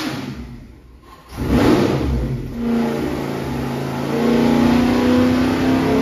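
632 cubic-inch big-block V8 with Holley EFI running on an engine dyno. The sound fades away briefly about a second in, comes back with a sudden loud rev, and settles into steady running that grows louder about four seconds in.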